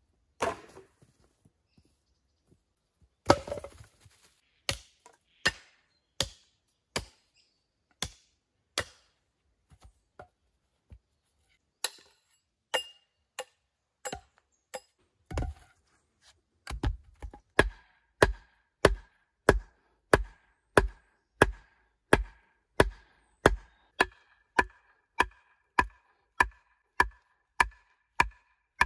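Hatchet work on green wood: a few loose knocks and one loud clattering knock about three seconds in, then hatchet strokes roughly every 0.7 seconds shaping a stake. From about halfway through come steadier, faster blows, about one and a half a second, driving the stake into the ground, each with a short ring.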